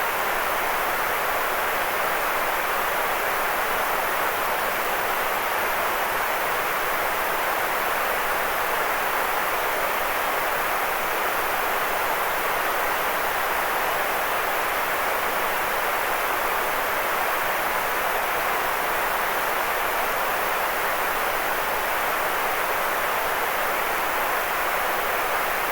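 Steady, unvarying white noise for sleep: an even hissing rush, strongest in the middle range and thin in the bass, with no changes or breaks.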